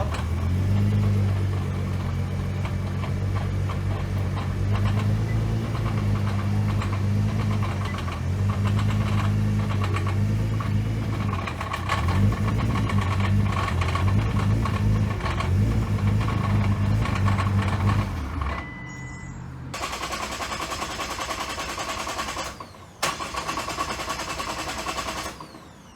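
Nissan GT-R R35's twin-turbo V6 idling on the fuel left in the lines, then stalling about eighteen seconds in as it runs out of fuel pressure with the fuel pumps unpowered. A quieter, even mechanical whirring follows.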